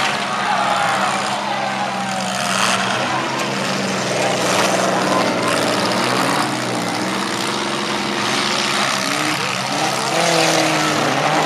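Engines of several compact demolition-derby cars running and revving, the pitch rising and falling as they are driven around a dirt arena, over a steady background din.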